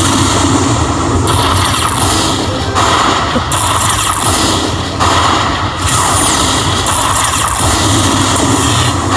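Lightning Link Sahara Gold slot machine playing loud, noisy sound effects over a low drone, shifting every second or so, as a hold-and-spin bonus finishes and its prizes are tallied.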